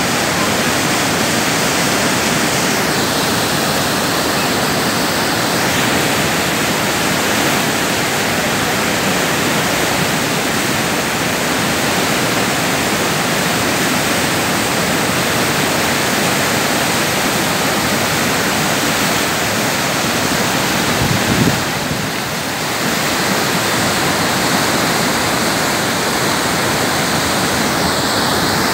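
Steady, loud roar of a large waterfall and its churning rapids in heavy flow. A brief low thump comes about two-thirds of the way through.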